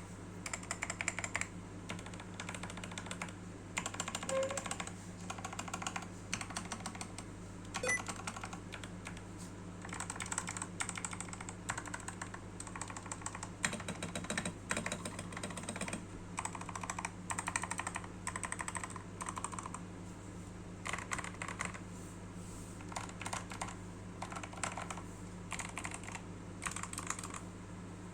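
Typing on a Fantech Maxfit61 mechanical keyboard modded with Eva foam above and below the PCB, lubed red linear switches (Krytox 205g0) and PBT keycaps: runs of rapid keystrokes with short pauses between them. A steady low hum sits underneath.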